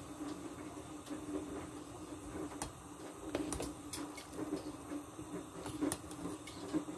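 Pot of chicken and green papaya soup boiling on the stove: irregular bubbling pops and clicks over a steady low hum, busiest around the middle, when the pot is stirred.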